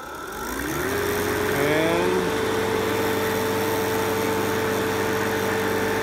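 Fieldpiece MR45 refrigerant recovery machine starting up: its compressor motor spins up over about the first second, rising in pitch, then runs with a steady whine. The machine is in self-purge, pumping the leftover refrigerant out of itself into the recovery tank.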